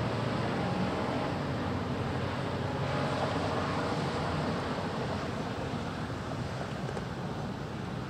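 ASC T-128 rotating electronic siren sounding its steady Alert tone, heard faintly under wind noise and a low rumble, easing off slightly in the second half.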